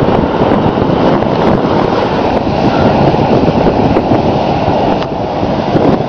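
Ocean surf rushing, with wind blowing across the camera microphone, making a loud, steady, rumbling hiss.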